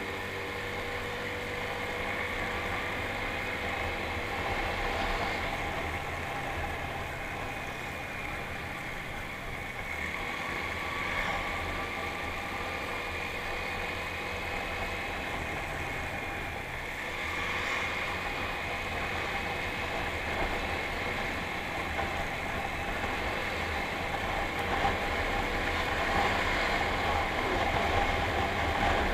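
Motorcycle engine running steadily while riding along a road, with tyre and wind noise, its note drifting gently and getting a little louder near the end.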